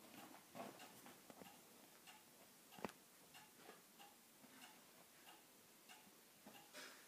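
Near silence with faint, scattered ticks and clicks and one sharper click about three seconds in.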